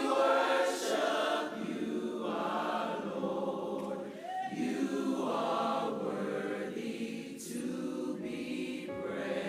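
Church choir singing in harmony, long held chords in several phrases with brief breaks between them.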